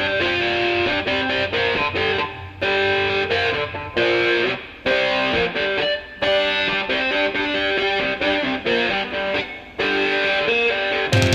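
Background music: a distorted electric guitar playing a repeating rock riff in short phrases separated by brief pauses.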